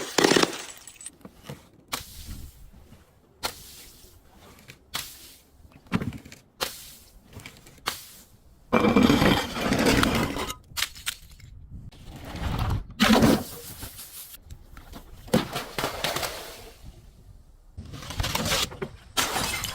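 Glass breaking and crunching in a long series of separate crashes, some short and sharp, others drawn-out crunching that lasts a second or more, with short pauses in between.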